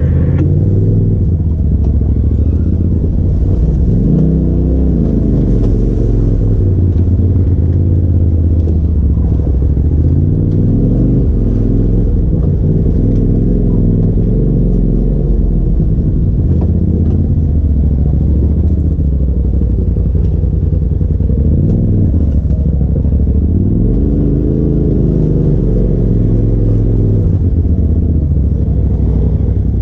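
Polaris RZR side-by-side's engine running at low speed, its pitch rising and falling over and over as the throttle is worked while crawling down a rough, muddy trail. Heard from the driver's seat, with a low rumble underneath.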